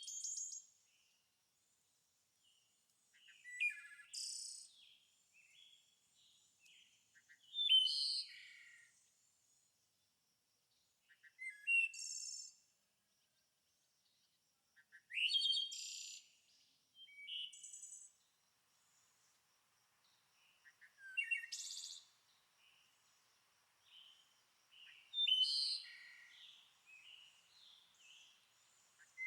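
A songbird singing short, varied phrases of about a second each, repeated roughly every four seconds, with softer chirps in between.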